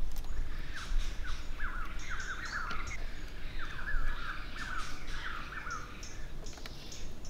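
A bird calling a rapid run of short, downward-slurred chirps, starting about a second in and stopping near six seconds, over a low rumble with scattered light clicks.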